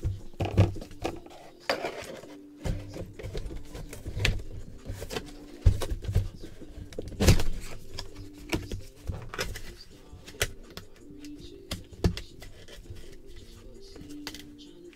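Background music, with scattered sharp clicks and knocks of objects being handled on a table.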